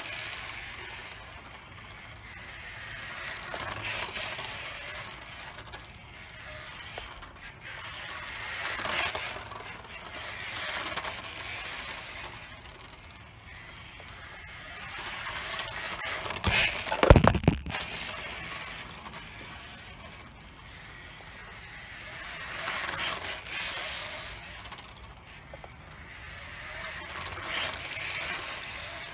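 Small electric RC car motor whining and tyres hissing on concrete as a 1/24-scale rally car drives back and forth. The sound swells and fades several times as it passes, with a loud knock about seventeen seconds in.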